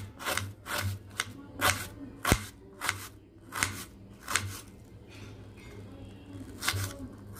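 Knife slicing a small red onion on a plastic chopping board: a string of short, crisp cuts about every half second, each ending in a light tap on the board. The cuts pause about five seconds in, then come once more near the end.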